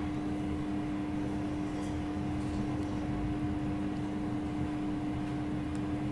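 A steady background hum, one held low tone with a fainter higher one, over even low noise.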